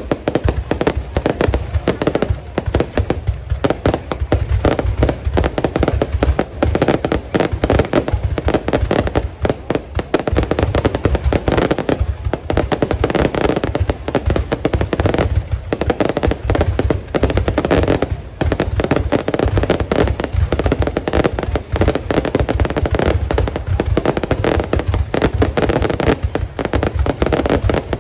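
Fireworks display: a dense, unbroken barrage of bursts and bangs, many per second, with a heavy low rumble of shells going off.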